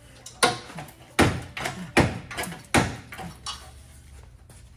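Sharp knocks and rattles of a bent front-end body part on a crash-damaged Toyota 86 being wrenched and struck loose by hand. The four loudest knocks come about a second apart, with smaller knocks between them, and they die away near the end.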